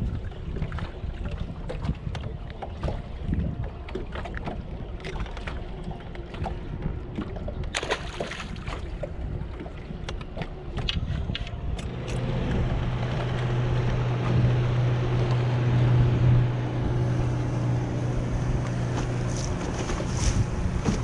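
Wind rumble on the microphone with scattered handling knocks, then about twelve seconds in a boat's motor starts a steady low hum under rising water and wind noise, which stops shortly before the end.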